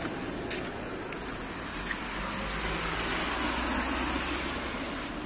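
Street traffic going by on a wet, snowy road: steady tyre hiss, with a vehicle's low rumble swelling and fading about midway. A couple of short sharp clicks, about half a second and two seconds in, fit footsteps on the slushy pavement.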